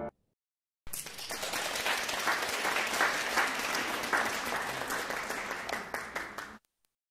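Audience applause, a dense patter of many hands clapping, starting about a second in and cutting off suddenly near the end.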